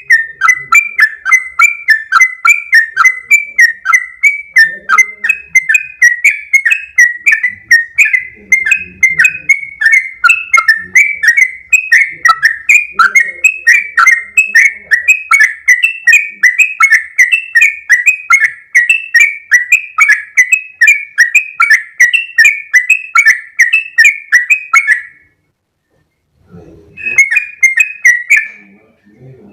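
Yellow-vented bulbul (trucukan) singing a long, fast run of chirping, bubbly notes, about three to four a second. It breaks off about 25 seconds in and picks up again briefly near the end.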